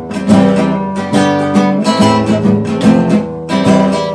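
Acoustic guitar strummed in a steady rhythm, chords ringing with no singing over them.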